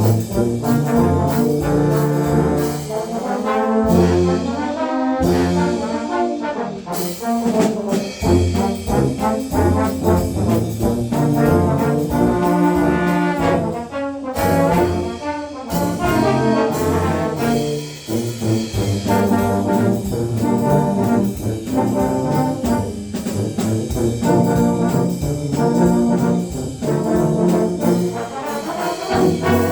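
Low brass ensemble of trombones and other low brass playing a jazz march in a lively rhythm, with sharp hits marking the beat.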